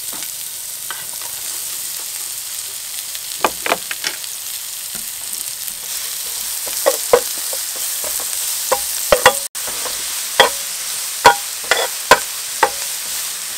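Shallots, garlic and paste sizzling in a non-stick frying pan with a steady hiss, while a metal ladle stirs them and clicks and scrapes against the pan. The clicks come in a small group a few seconds in and grow more frequent through the second half.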